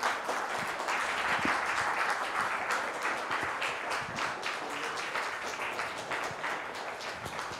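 Audience applauding, starting all at once and slowly thinning out.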